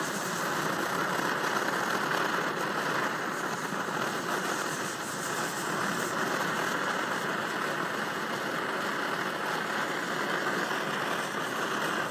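Svea 123R white-gas stove burner roaring steadily at full flame, burning without flaring.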